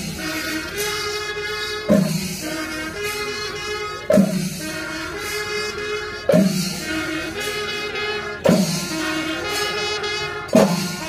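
Music with sustained brass-like tones over a strong drum hit that repeats about every two seconds.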